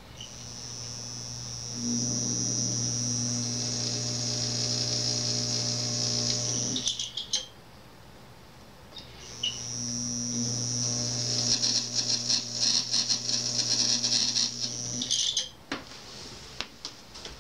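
Homemade AC electromagnet (multi-layer copper coil on a steel bolt core) powered through a Variac, humming with a high whine on top as the voltage is turned up. It runs twice, swelling up each time, with rattling clicks near the end of each run before it is switched off and the hum cuts out.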